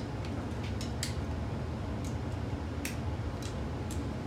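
Torque wrench on the ARP head bolts of an LQ4 6.0 V8: about five sharp, separate clicks, irregularly spaced, as the bolts are taken up on the first 25 foot-pound pass. A steady low hum runs underneath.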